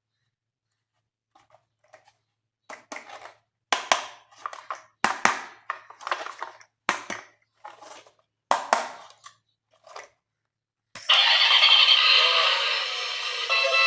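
A series of short rustles and crackles from handling toy packaging, about ten of them, each fading within about half a second. About 11 seconds in, loud electronic music with synthetic singing starts.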